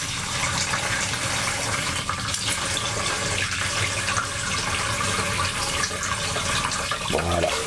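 Hand shower head running steadily into a plastic jug, the stream splashing as it fills. This is the cold water left in the pipes being run off and saved until the hot water arrives.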